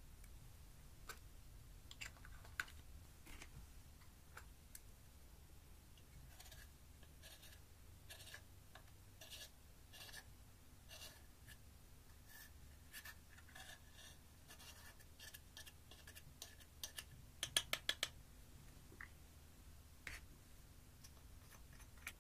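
Faint scraping and tapping of a spatula breaking up pressed eyeshadow and scraping it out of its plastic pans over a glass dish, with a quick run of sharp clicks about three-quarters of the way through.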